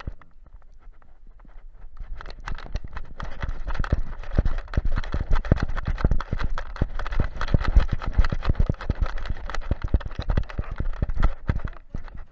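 Handling noise from an action camera strapped to a moving Alaskan Malamute's harness: a dense run of quick, uneven knocks and rustling as the mount jostles and fur brushes against it with the dog's strides. It is quieter for about the first two seconds.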